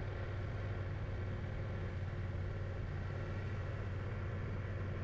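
Motorcycle engine running steadily with a low, even hum, picked up by a camera mounted on the bike's windscreen.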